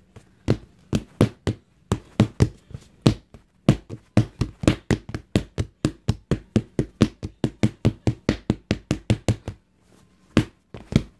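A pair of padded punching mitts smacked together over and over, about three smacks a second. The smacks stop for a moment near the end, then come again a couple of times.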